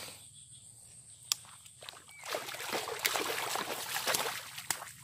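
Hooked striped snakehead thrashing and splashing at the water's surface as it is hauled out on the line, a burst of splashing starting about two seconds in and lasting a little over two seconds. A single sharp click comes a little over a second in.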